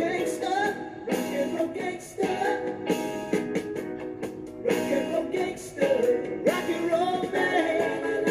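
A song with singing over guitar and drums.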